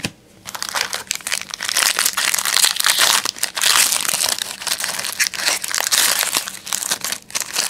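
Foil wrapper of a Topps Bazooka baseball card pack crinkling and tearing as it is pulled open by hand. It is a dense run of crackles that starts about half a second in.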